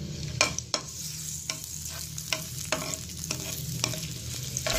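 Sliced onions frying in hot cooking oil in a frying pan, stirred with a wooden spatula that knocks and scrapes against the pan about twice a second over a steady sizzle.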